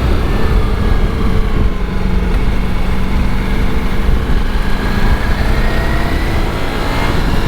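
Ducati Multistrada V4S's 1158 cc V4 engine running under way, its note rising and falling with speed, over a heavy low rumble of wind on the microphone.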